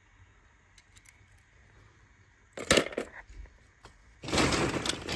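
Hollow plastic ball-pit balls clattering as a hand digs through them: a short clatter about two and a half seconds in, then continuous rattling from about four seconds on.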